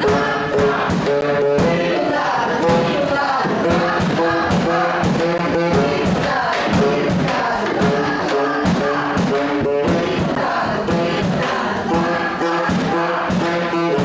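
A group of performers singing a song together in chorus, over a steady beat.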